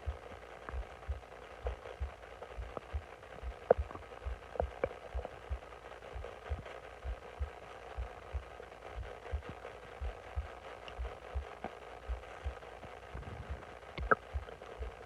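Bloated stomach growling: low gurgling with short squeaky pops, the loudest a little under four seconds in and again near the end, over a steady run of soft low thumps about two or three a second.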